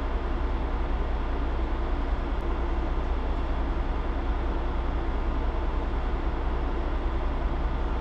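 Log truck's diesel engine idling: a steady low rumble.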